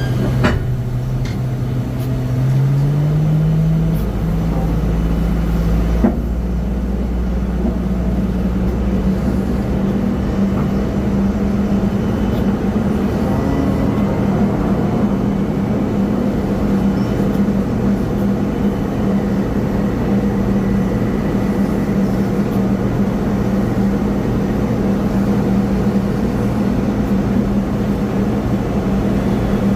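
Steady machine drone of an airliner being pushed back. A tone in it climbs in pitch about two to four seconds in and then holds level, and there is a sharp click about six seconds in.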